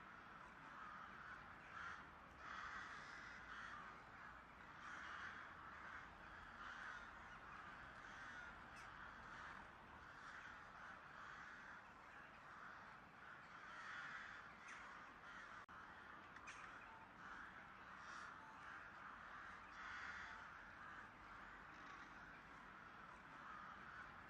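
Crows cawing repeatedly, faint and continuous, several calls a second overlapping.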